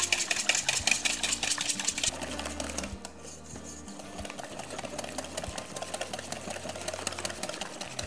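Wire whisk beating milk and egg yolks in a stainless steel bowl: a rapid, even clatter of the whisk against the metal, a little quieter after about three seconds.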